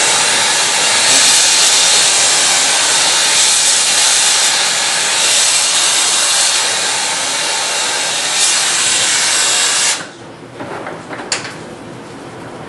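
Soldering torch flame hissing steadily as it heats a copper pipe joint, then stopping abruptly about ten seconds in; a single sharp click follows a moment later.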